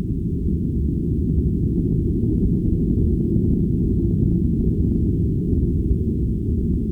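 Swamp ambience sound effect heard as a dense, muffled low rumble with no high sounds in it, steady and unbroken throughout.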